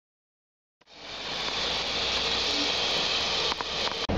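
Silence for about the first second, then steam hissing steadily from a Swiss E 3/3 'Tigerli' steam tank locomotive standing in steam.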